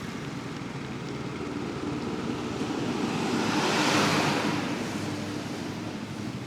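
Bajaj Pulsar N250's single-cylinder engine running steadily under a rushing hiss of wind and wet-road noise, which swells to a peak about four seconds in and then fades.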